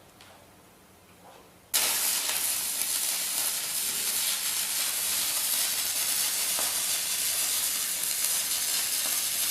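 Stick-welding arc run off three batteries wired in series: the arc strikes suddenly about two seconds in and then burns with a steady, loud hiss.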